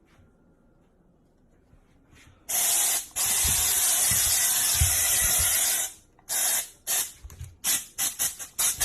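Hissing spray from a pressurised nozzle: one long spray starting about two and a half seconds in and lasting about three and a half seconds, then a string of short spray bursts that come faster and faster toward the end.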